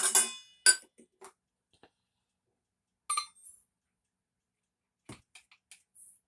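Kitchenware clinking and knocking as sugar is measured out of storage containers: a loud clink with a brief ring at the start, another sharp clink just under a second in, one more about three seconds in, then a few light taps near the end.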